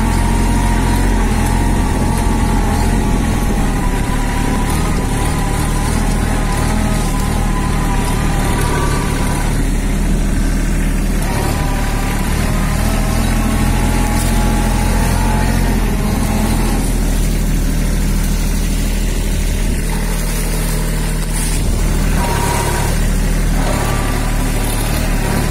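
Kubota A211 narrow tractor's three-cylinder diesel engine running steadily as it pulls a cultivator through a field, with a higher whine that drops out and returns several times.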